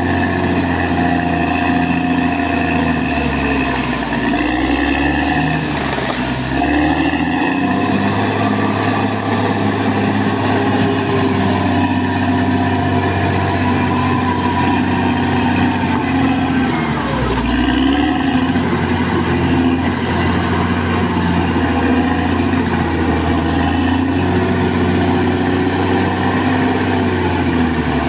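Caterpillar D6R XL bulldozer's diesel engine running steadily, its pitch dipping and coming back up a few times, most markedly about five seconds in and again around seventeen seconds in.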